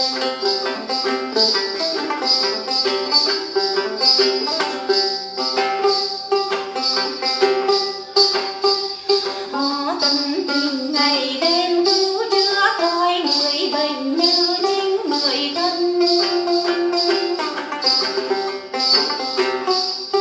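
A woman singing a Tày then song to her own đàn tính, a long-necked lute with a gourd body, its plucked notes under a melody that bends and holds long notes. A steady jingling beat runs through it about twice a second.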